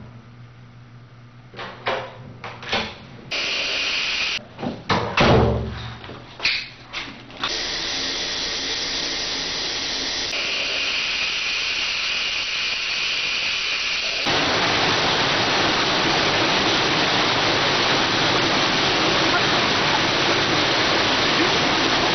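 A few knocks and thumps, then a shower running: a steady hiss of falling water that gets louder about two-thirds of the way through.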